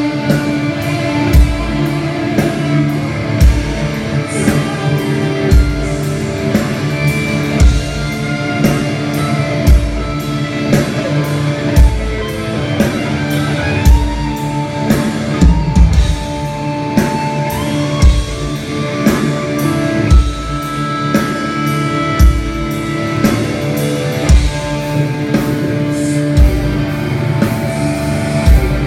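Black metal band playing live, electric guitars holding sustained chords over a drum kit. Heavy bass-drum hits come at a steady pace, with frequent cymbal strikes on top.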